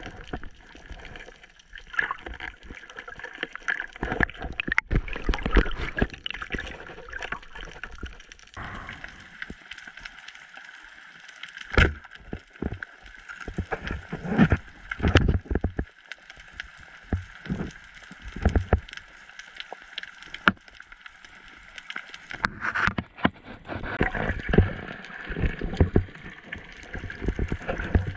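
Underwater sloshing and gurgling water heard through a GoPro's waterproof housing, with irregular sharp knocks and clicks.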